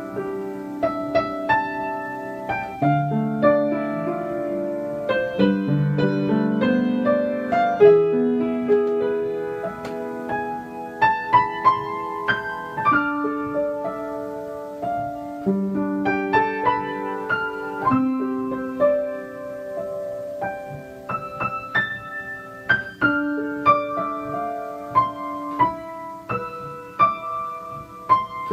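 Background piano music: a slow, continuous piano piece with sustained notes.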